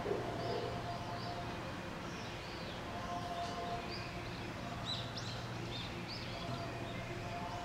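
Small birds chirping in short, high repeated calls, most often around the middle, over a steady background hum.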